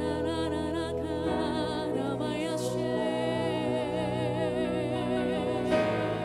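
Live worship song: a woman and a man singing into microphones with vibrato, over a sustained instrumental accompaniment whose chords change about a second in and again near the end.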